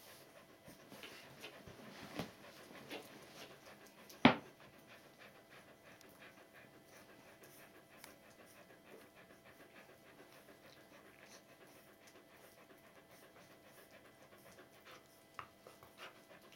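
An adult Border Collie panting faintly. There is a single sharp knock about four seconds in, and a few small ticks.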